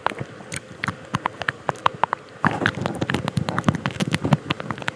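Rapid, irregular small clicks and crackles close to the microphone, thickest about halfway through.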